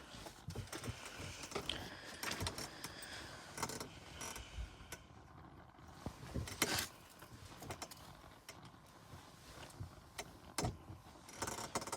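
Small objects being handled: irregular clicks, light rattles and rustling, with a couple of louder knocks about halfway through and again near the end.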